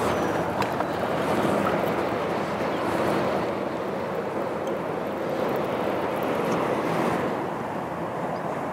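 Steady wind and small waves lapping against the hull of a fishing boat.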